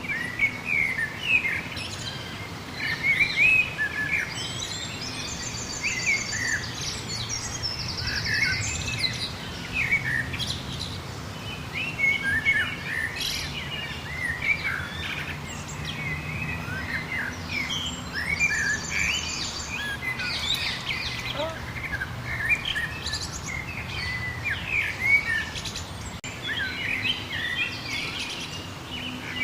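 Several wild birds chirping and singing together in overlapping short, sweeping calls, with a higher rapid trill heard twice, over a low steady background rumble.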